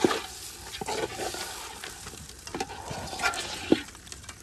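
Spatula stirring and scraping through thick, sizzling duck-and-rice khichuri in a metal pot over a fire, with several sharp knocks of the spatula against the pot.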